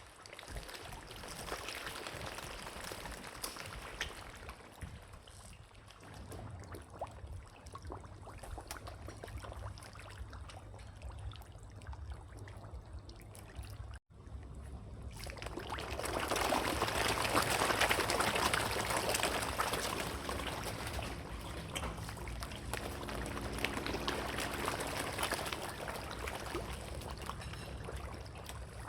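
Water splashing and trickling, in two stretches split by a momentary cut about halfway through; the second stretch is louder.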